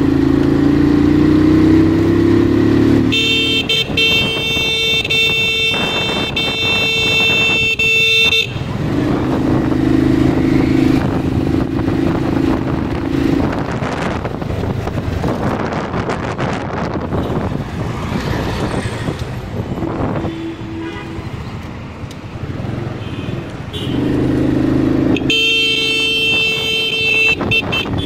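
Runner Kite 100cc motorcycle engine running under way, with wind and road noise between stretches of steady engine note. A vehicle horn sounds twice, a long blast of about five seconds early on and a shorter one near the end.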